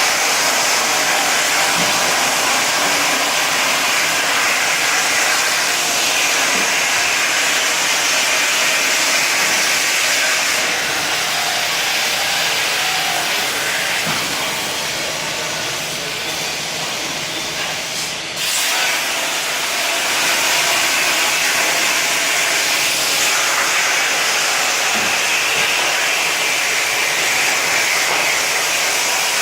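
Torch of a Procut 25 CNC plasma cutter cutting, with a steady loud hiss of the arc and air jet. It drops off for a moment about two-thirds of the way through, then resumes.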